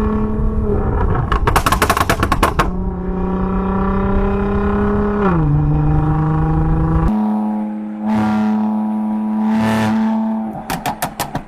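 Sports car engine held at steady high revs with a strong pitched exhaust note. Two quick runs of sharp pops cut in, one early and one near the end. The pitch steps down about five seconds in, and the deep rumble underneath drops out abruptly a couple of seconds later.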